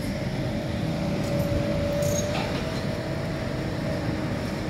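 A steady low engine rumble with a faint whine over it that fades out about halfway through.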